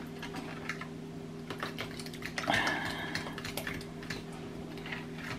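Metal fork clicking and scraping against a plastic tub while stirring a thick yoghurt dip: irregular light taps, with a louder scrape about two and a half seconds in. A steady low hum runs underneath.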